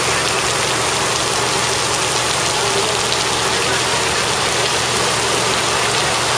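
Steady heavy rain pouring on and off a corrugated roof, with a low engine hum underneath.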